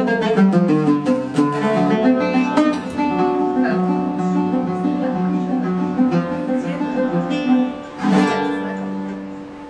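Instrumental background music of plucked-string notes, with a fuller chord about eight seconds in, fading away near the end.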